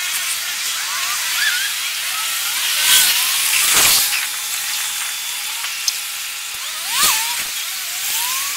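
Downtown street traffic sped up twelve times, heard as a steady high hiss with short gliding chirps. Two louder whooshing swells come about three to four seconds in and again about seven seconds in, passing vehicles compressed into a second each.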